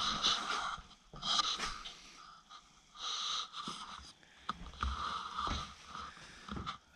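A person breathing close to the microphone, about five noisy breaths in and out.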